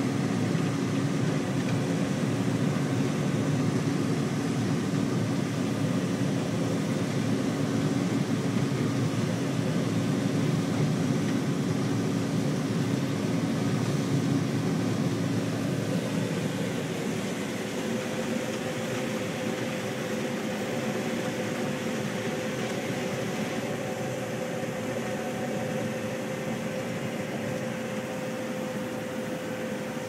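Combine harvester heard from inside its cab while harvesting corn: a steady drone of engine and threshing machinery with a constant hum. About halfway through, the low rumble eases and a higher hum comes to the fore.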